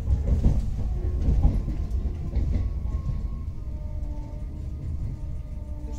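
EG2Tv Ivolga electric train running at speed, heard from inside the passenger car: a steady low rumble of wheels on rails with a few irregular knocks. A faint steady whine joins in about halfway.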